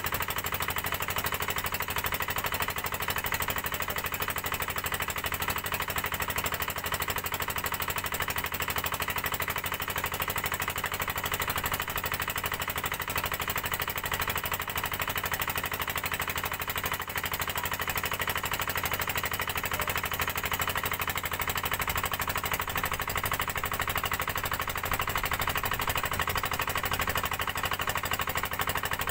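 Small fishing boat's engine running steadily under way, a rapid, even knocking beat that holds constant throughout.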